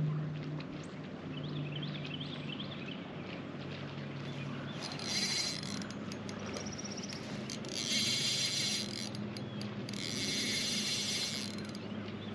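Fishing reel being cranked in three short bursts, its gears whirring, as line is retrieved. A low steady hum runs underneath.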